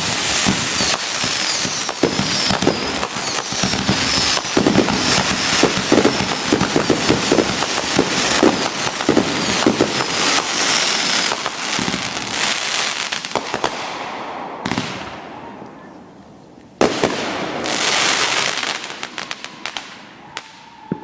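Fireworks barrage: rapid, overlapping bangs and crackling for about fourteen seconds, dying away, then a sudden new loud burst of bangs and crackle near the end that fades out.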